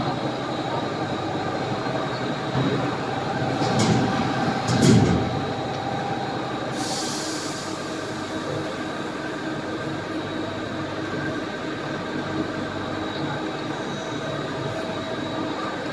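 Machine-tool machinery running steadily in a workshop, a continuous hum with several steady tones. A few metallic clanks come about four to five seconds in, and a short hiss comes about seven seconds in.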